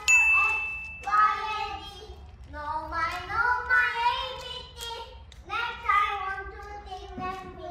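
A child singing in a few long, sliding, held notes, with the echo of a bare metal container. A short, steady, high-pitched tone is heard for about a second at the start.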